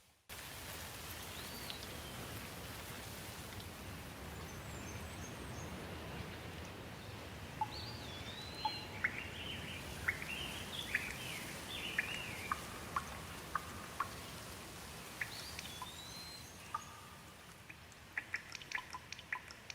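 Steady rain falling on leaves, with birds calling in short up-and-down chirps, thickest through the middle. Near the end, single drops begin to tick close by.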